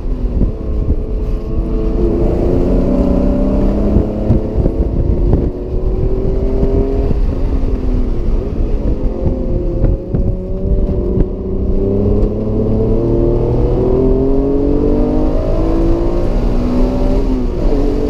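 Acura NSX's mid-mounted V6 engine heard from inside the cabin at speed on a race track, revving up in several climbs in pitch and falling back between them.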